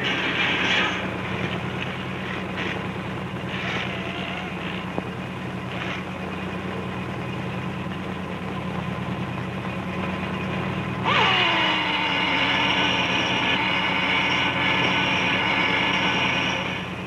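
Factory machinery running steadily under a low hum, with a few short clanks in the first seconds. About eleven seconds in, a machine starts up with a whine that falls in pitch and a loud hiss that holds until shortly before the end.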